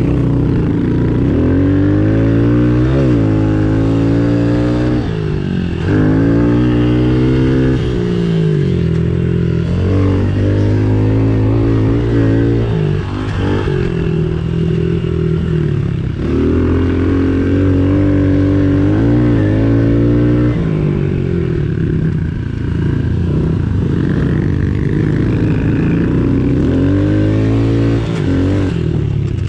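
Small 110cc engine being ridden, revving up and dropping back over and over, its pitch climbing then falling every two to four seconds as the throttle is opened and closed.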